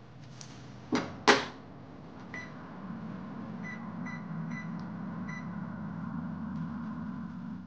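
Microwave oven being started: the door clicks shut twice, the keypad beeps four or five times, then the oven runs with a steady hum.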